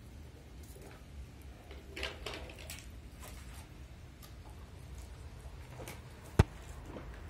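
Light rustling and clicking as dry cat food is handled and shaken from a plastic bag onto a board, with one sharp click about six seconds in, the loudest sound. A low steady rumble runs underneath.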